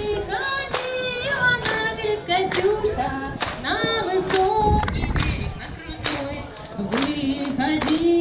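Crowd clapping along in time, a little over one clap a second, to singing voices.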